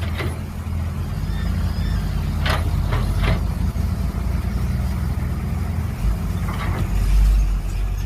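Mini excavator's engine running steadily under digging work, with a few sharp knocks about two and a half and three seconds in and a low surge around seven seconds.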